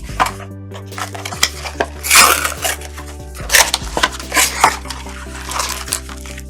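Trading-card packs and cards being handled: a run of crinkling, rustling wrapper and card-handling noises, loudest about two seconds in.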